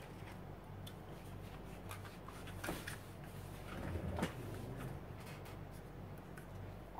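Hands handling and setting down craft tools: scattered light clicks with two louder clattering knocks, one a little under three seconds in and one about four seconds in, over a low steady hum.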